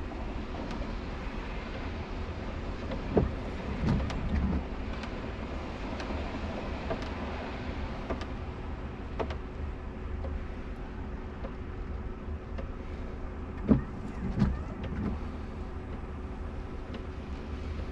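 Inside a car standing still in the rain: a steady low rumble with scattered light ticks of raindrops. Two brief thumps, each followed by a short swish, come about three seconds in and again near fourteen seconds.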